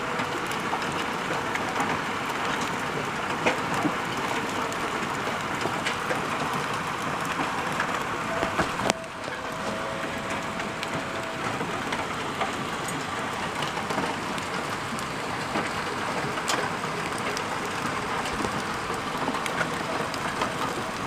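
Hail coming down hard: a dense, steady patter of hailstones striking surfaces, dotted with sharp individual ticks from larger stones.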